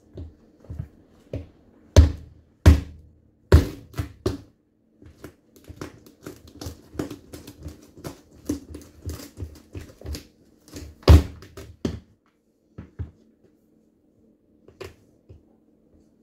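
A whole pumpkin's shell cracking and splitting under a person's weight as she stands on it in sneakers: a few loud sharp cracks, then a long run of smaller crackling snaps, and one more loud crack later as it breaks open, followed by a few faint clicks.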